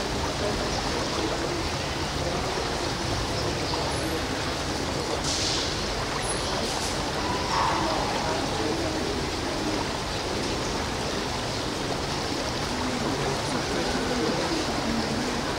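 Steady rushing background noise, with a faint murmur of voices in it.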